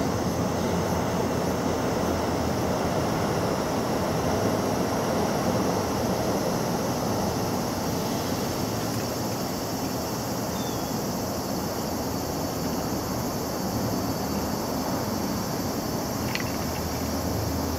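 Steady outdoor background noise, an even hiss with a low rumble under it, unchanging throughout. There is a faint short chirp about eleven seconds in and a brief click near the end.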